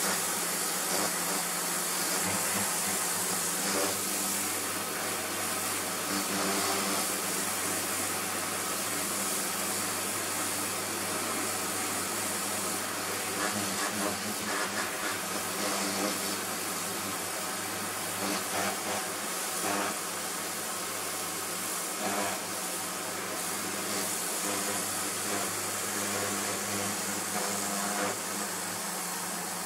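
Karcher pressure washer running: the pump motor's steady hum under the hiss of the high-pressure water jet spraying onto a plastic sun lounger.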